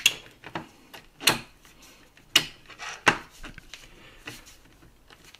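3D-printed plastic rack pieces knocking and clicking as they are pressed together and handled on a cutting mat: four sharp knocks about a second apart, with lighter clicks between them.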